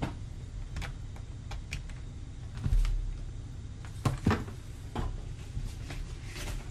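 Handling noise of a charger being plugged in: scattered light clicks, a dull thump nearly three seconds in, and two sharper knocks just after four seconds.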